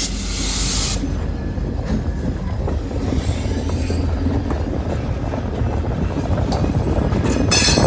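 Freight train rolling past at close range: covered hopper cars' wheels rumbling and clacking over the rails, with a BL20-2 diesel locomotive coming alongside. A sharp hiss in the first second and a shorter one near the end.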